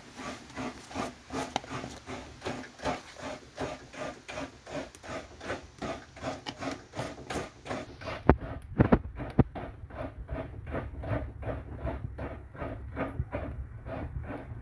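Coconut being scraped on a hand coconut scraper: an even run of rasping strokes, about three a second, with a few sharper knocks a little past the middle.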